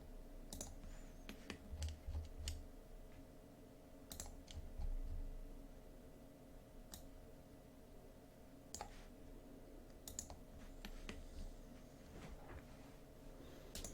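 Scattered, irregular clicks of a computer mouse and keyboard being worked, faint, over a steady electrical hum.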